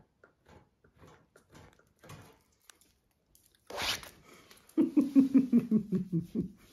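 Puppy nibbling and mouthing at a cat with faint soft clicks, then a loud rustle of handling, then a quick run of short vocal pulses, about six a second and falling slightly in pitch.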